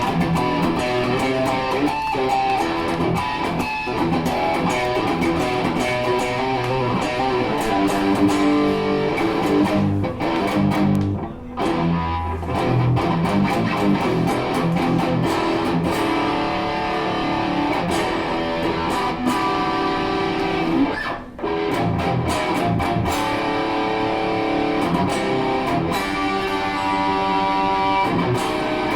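PRS Custom 24 'Floyd' electric guitar being played, a continuous run of notes and chords with two brief breaks about eleven and twenty-one seconds in.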